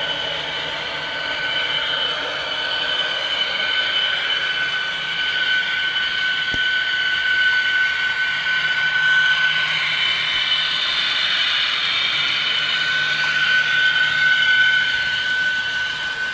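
Model New Haven EP-5 electric locomotive running with a string of freight cars: a steady whine from the model's motor over the rolling rattle of wheels on the track.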